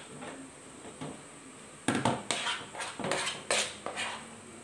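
A spoon clattering against cookware: about six quick knocks and scrapes, starting about two seconds in and lasting about two seconds.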